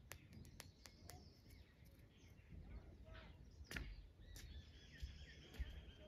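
Faint bird calls: sharp clicking notes and short chirps, with a thin held whistle in the second half, over a low rumble.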